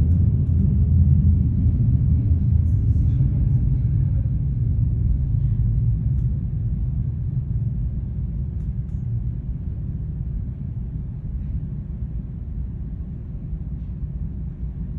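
Low rumble of a Boeing 737's jet engines at takeoff power, fading steadily as the airliner moves away.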